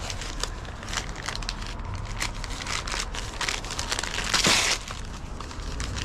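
Packaging crinkling and rustling as it is handled and rummaged through, with one louder rustle about four and a half seconds in.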